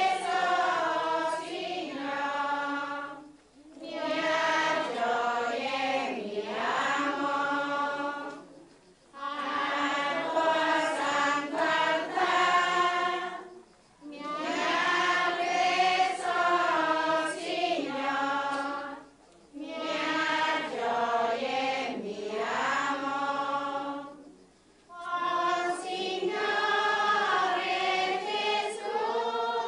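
A choir singing a slow melody in phrases of about five seconds, with a short breath pause between each phrase.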